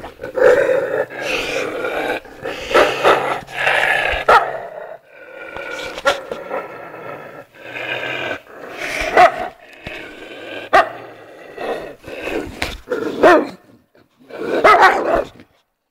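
Stray puppies growling and barking in short, repeated bursts.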